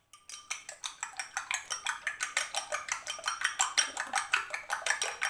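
A fork beating an egg in a small glass bowl: quick, even clinks of the fork against the glass, about eight a second.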